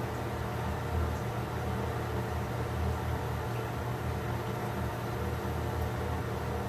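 A steady low machine hum with a faint hiss above it, unchanging throughout.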